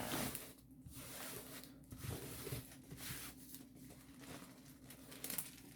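Faint, irregular rustling and scuffing of a diamond painting kit's packaging as it is handled and unwrapped.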